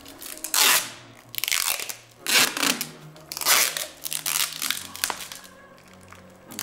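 Adhesive tape being pulled off the roll in several loud rasping rips, wrapped around the shin over a shin guard and sock.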